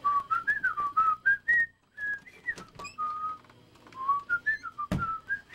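A person whistling a meandering tune in short gliding notes, with one longer held note about midway and a brief pause before it. Scattered clicks of handling noise run through it, and there is a single heavy thump near the end.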